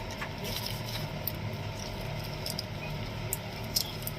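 Scattered light clicks and scrapes of a blade and small plastic parts as a keypad mobile phone is worked on, over a steady low background hum.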